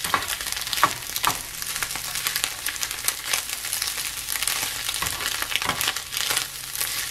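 Scrambled eggs sizzling in a small nonstick frying pan as a slotted spatula chops and scrapes through them, giving irregular taps and scrapes against the pan.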